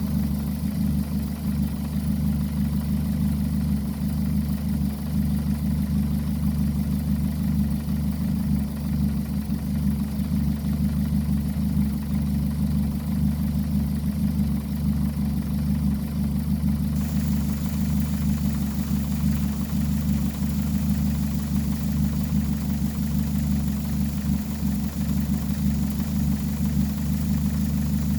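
2003 Ford Focus four-cylinder engine idling steadily. The engine is losing coolant, about 2 gallons every 3 days, and is being treated for a leaking head gasket.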